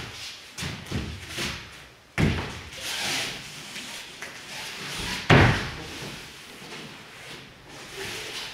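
Bodies, knees and hands hitting foam puzzle mats during an aikido ikkyo takedown. A few light thumps come in the first second or so, then two sharp slaps about two and five seconds in, the second the loudest.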